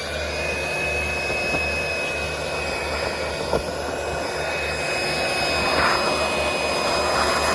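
Handheld vacuum running, spinning up at the start and then holding a steady high whine over a rushing noise as it sucks infill out from under lifted synthetic turf. A single sharp tick about three and a half seconds in.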